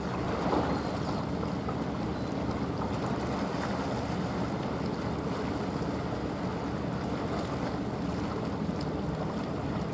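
A small coastal cargo ship under way, its diesel engine droning steadily under the rush and splash of water along its bow and hull, with wind noise on the microphone.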